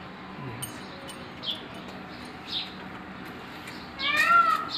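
A loud, drawn-out meow-like animal call, rising then falling, about four seconds in, after two faint short high chirps.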